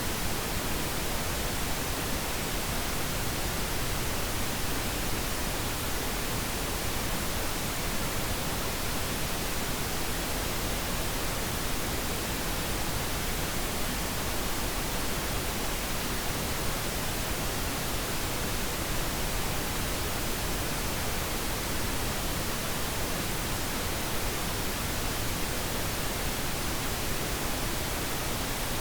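Steady pink noise: an even, unbroken hiss with no changes in level or pitch.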